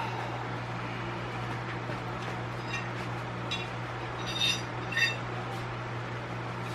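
Steady hum of a garage fan, with a few short metallic clinks in the middle as steel tire levers knock against the rim while a stiff dirt-bike tire bead is pried on.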